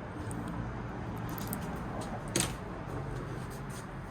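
Handling of an iMac's internal parts during disassembly: a single sharp click about two and a half seconds in, over a steady low hum.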